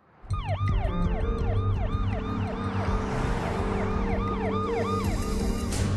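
Ambulance siren in fast yelp mode, its pitch sweeping rapidly up and down about three times a second over a low rumble. It starts abruptly a moment in.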